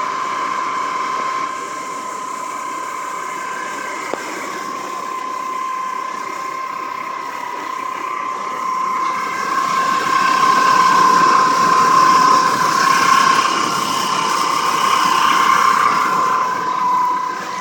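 A steady mechanical whine holding one pitch, with a rushing noise underneath; both grow louder about ten seconds in.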